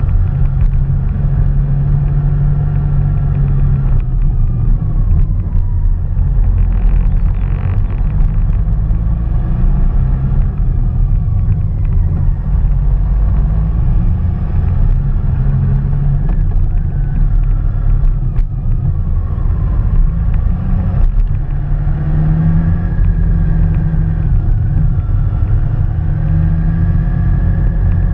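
Motorcycle engine running on the move, its pitch rising and falling every few seconds as it speeds up and slows through the bends, over a steady low rumble.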